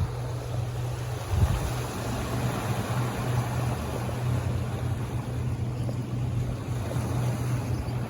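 Steady low machinery hum aboard a ship, with wind and water noise, and a single knock about a second and a half in.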